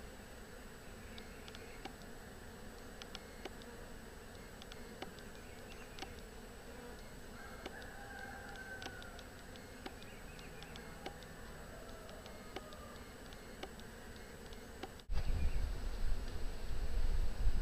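Honey bees buzzing steadily around an opened hive while brood frames are lifted out, with scattered small clicks of wooden frames being handled. About two seconds before the end, a sudden loud low rumble takes over.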